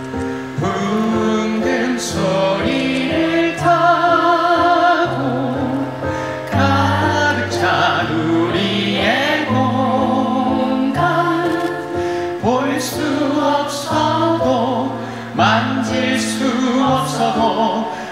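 A stage-musical song: instrumental accompaniment with singing voices, several voices together like a group singing along, with held notes sung with vibrato.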